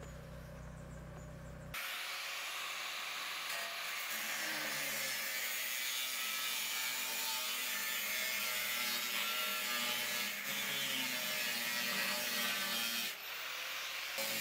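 Angle grinder with a cutting disc slicing through the side of a steel drum, a steady hiss that starts abruptly about two seconds in, with a brief drop near the end.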